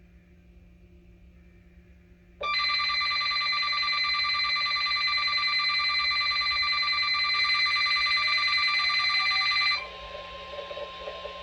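A weather radio's alert alarm sounds for about seven seconds, a loud, shrill, trilling electronic tone that starts abruptly and announces an incoming tornado warning. When it cuts off, the broadcast's steady 1050 Hz warning alarm tone carries on more quietly.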